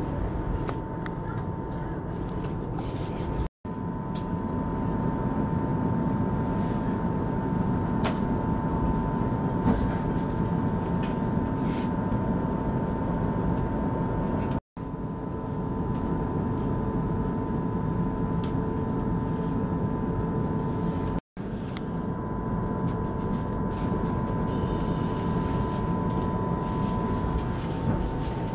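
Steady running noise of a passenger train heard from inside the carriage: a rumble of wheels on rails under a thin, steady hum. It breaks off three times for an instant.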